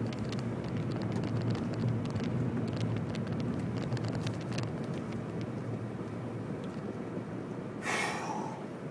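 Car driving slowly along a narrow, rough lane, heard from inside the cabin: a steady low rumble of engine and tyres, with small clicks and crackles from grit under the tyres. About eight seconds in there is a brief, louder noise with a squealing edge.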